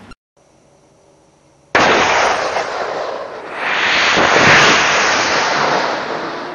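Detonating cord and detonator going off with a sudden bang about two seconds in, igniting a GasGun propellant charge confined in a perforated canister. The charge then burns with a loud rushing blast that swells for about two and a half seconds and slowly dies away, the sign of the propellant's progressive burn building up pressure.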